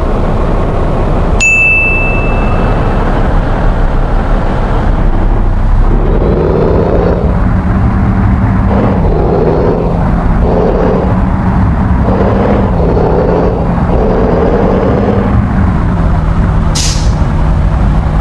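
Bus engine running with its telolet horn playing a run of about eight notes of changing pitch from about six to fifteen seconds in. A single ding sounds about a second and a half in, and a short hiss comes near the end.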